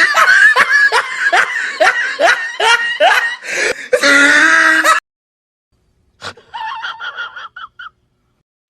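Loud, high-pitched laughter in rapid repeated bursts, cut off abruptly about five seconds in; after a pause, a click and a shorter, quieter stretch of voice follow.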